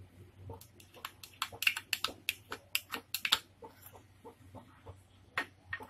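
Quick, irregular run of sharp clicks and taps, densest in the first half, as a small glass and a utensil knock against the plastic bowl while a raw egg is poured in.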